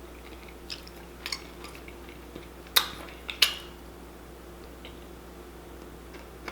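Eating sounds: a few short sharp clicks and smacks of chewing and handling food, the two loudest close together about three seconds in, over a faint steady hum.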